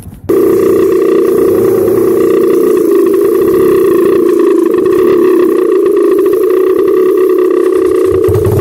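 Dirt bike engine running loud at steady high revs, an even drone that cuts in suddenly about a quarter second in and holds without change.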